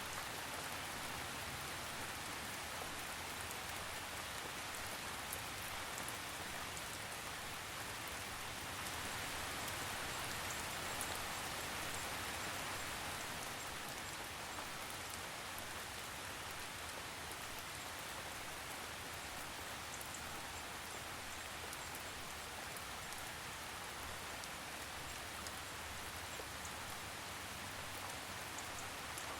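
Steady rain falling, with a dense patter of drops, swelling slightly about a third of the way in.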